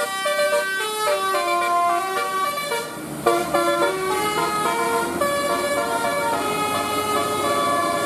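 A tour bus's telolet 'Basuri' musical air horn plays a melody of held notes stepping from pitch to pitch, with a short break about three seconds in.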